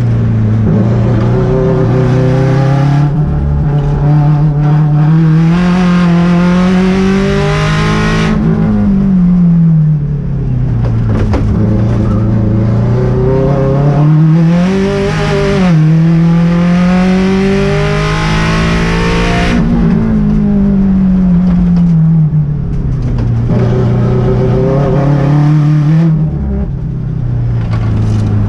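Turbocharged Subaru EJ257 flat-four in an STI-swapped GC8 race car, heard from inside the cabin under hard track driving. The engine pitch climbs and falls in several long sweeps as it accelerates and slows.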